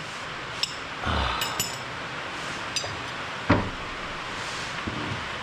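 Metal hand tools clinking and knocking against the mower's blade and deck, a few separate strikes with a short scraping clatter about a second in and the loudest knock about three and a half seconds in, over a steady hiss.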